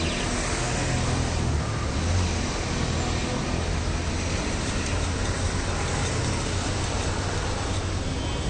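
Steady street traffic noise: a constant hiss of passing vehicles with a low engine rumble underneath.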